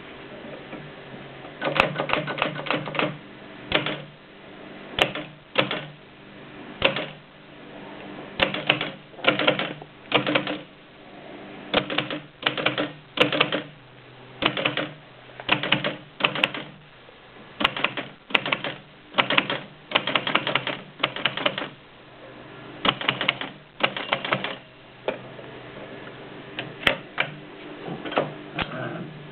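Mignon index typewriter printing: sharp clacks, singly and in quick runs of several strokes, with short irregular pauses between them.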